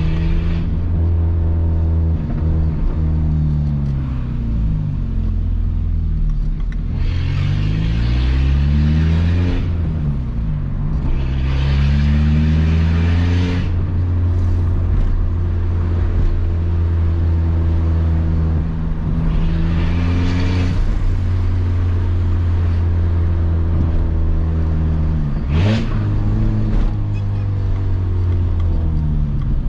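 Peugeot 206 1.4 four-cylinder petrol engine with a straight-pipe exhaust (no muffler), driving in traffic. Its note climbs and falls several times as it accelerates through the gears and eases off, turning loud and raspy during the harder pulls.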